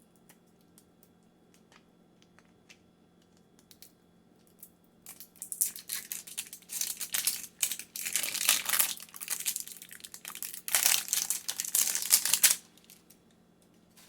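Thin plastic wrapping crinkling and tearing as it is pulled off a toy capsule ball. It comes in two long stretches: from about five seconds in to about ten seconds, then again until shortly before the end.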